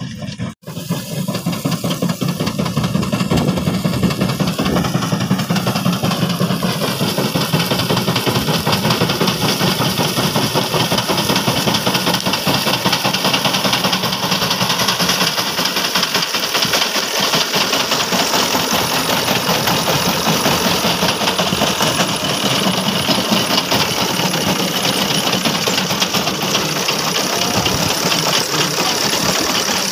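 Engine of a wheat reaper running steadily while cutting wheat.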